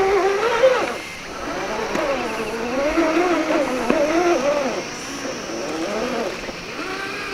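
Electric motor and gearbox whine of a 1/10-scale RC rock crawler built on an Axial SCX10 II chassis, rising and falling in pitch as the throttle is worked on a slow rock climb. A few light knocks are heard along with it.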